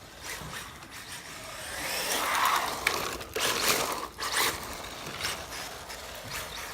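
Brushless-powered radio-controlled car (HPI RS4 Sport) driving on tarmac: a rushing of tyres and drivetrain that swells as it speeds past, loudest between about two and four seconds in, with a few sharp clicks.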